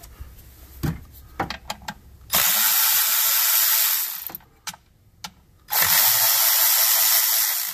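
Cordless electric ratchet with a 10 mm socket running in two bursts of about two seconds each as it spins nuts loose. A few light clicks of the socket going onto the nut come first.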